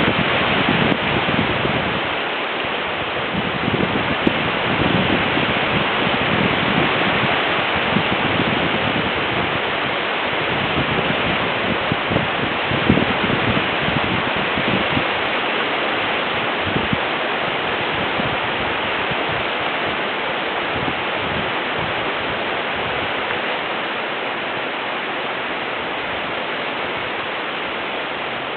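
Wind blowing through trees and hedges: a steady rushing of leaves with irregular low gusts in the first half. It eases a little toward the end.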